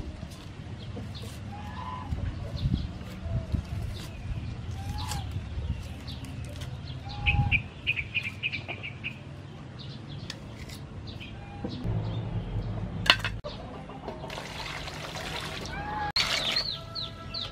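Backyard chickens clucking in short calls, with a quick run of higher calls about seven seconds in and a busier cluster of calls near the end. Soft handling noises run underneath.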